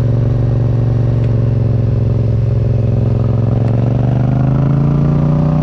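Yamaha MT-07's parallel-twin engine, through a full Akrapovič exhaust, running steadily under way. The engine note sags slightly mid-way, then rises gently near the end.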